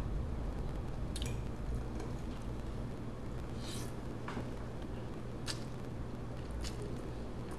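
Close-up mukbang eating sounds of spaghetti in meat sauce: wet, squishy chewing and slurping of noodles, with a few short sharp clicks and smacks spread through. A steady low hum runs underneath.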